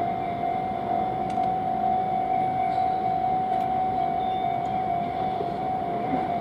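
Japanese level-crossing warning bell ringing, a steady electronic tone that keeps on throughout, over the low rumble of a train on the Keihan Ishiyama-Sakamoto Line.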